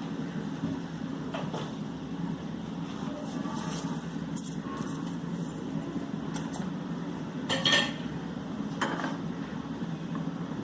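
A metal spoon clinking now and then against a small pan, a few separate clicks, the loudest about three quarters of the way through, over a steady low kitchen hum.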